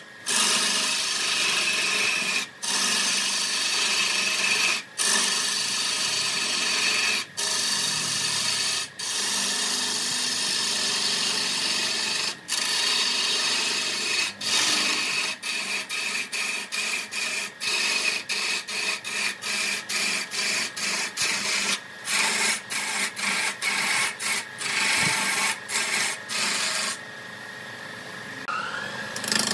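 Wood lathe: a turning tool scraping against the spinning wood, a steady rasping hiss. It is broken by short gaps, a few at first and then many in quick succession in the second half, and turns quieter near the end.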